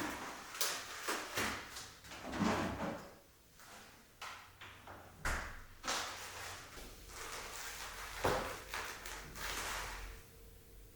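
Objects being handled: a run of irregular knocks and clacks with rustling in between, quietening near the end.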